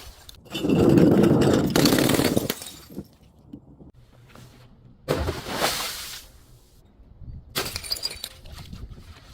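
Glass bottles breaking and crunching. A heavy crunch lasts about two seconds near the start, a sudden break comes about five seconds in, and crackling of shards follows near the end.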